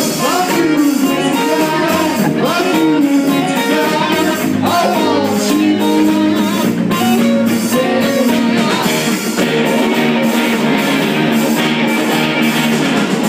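Live rock band playing: electric guitars strummed over drums keeping a steady beat.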